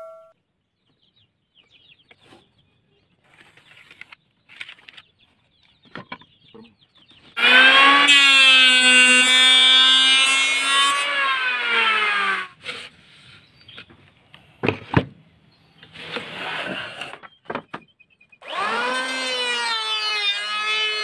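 Electric hand planer running as it planes a teak board. Its motor whine holds steady for about five seconds and sags in pitch as it stops. A few knocks and scrapes follow, then the planer starts again near the end.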